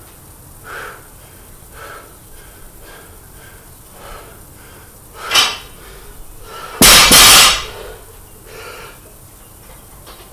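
Loaded 30 kg barbell set down on a concrete floor about seven seconds in, its plates landing in a short, loud clatter. Heavy breathing between one-arm snatch reps, swelling about once a second.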